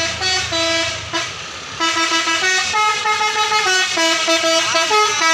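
Multi-note 'telolet basuri' bus horn playing a quick tune of stepped notes, with a low engine hum under the first second.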